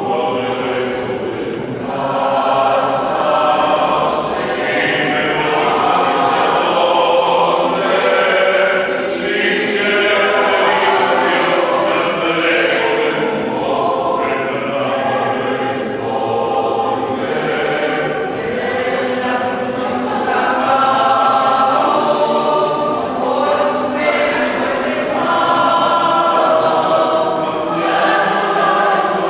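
Mixed choir of men's and women's voices singing together in harmony under a conductor, one continuous phrase after another.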